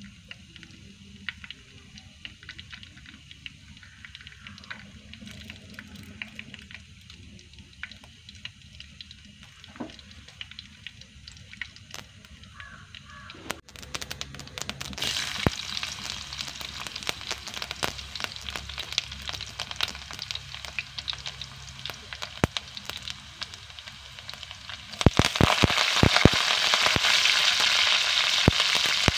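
Cooking oil in a clay pot over a wood fire: at first only faint crackles, then a steady sizzle as the oil gets hot. Near the end, chopped ingredients and curry leaves are dropped into the hot oil and it sizzles loudly, with sharp spitting pops.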